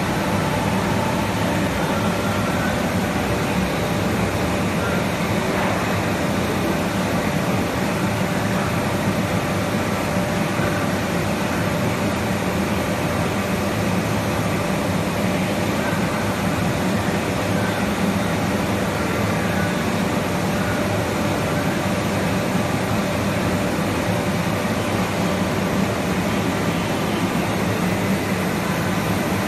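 Large CNC milling machine running a program: a steady mechanical hum and hiss with a few faint steady whining tones.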